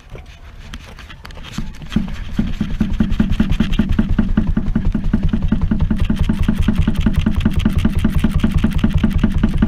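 A rapid, even mechanical rattle that starts about two seconds in and runs steadily, from work on freeing a rusted steel rubbing strake from a narrowboat's hull.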